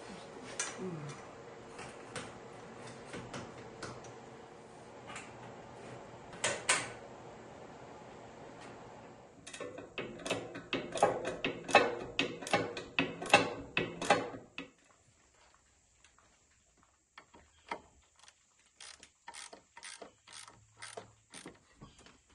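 Steel angle-iron bracket parts clinking and clicking as they are handled and fastened onto a solar panel's frame, with a fast run of ratchet-like clicks for about five seconds in the middle. Near the end there are only a few scattered clicks.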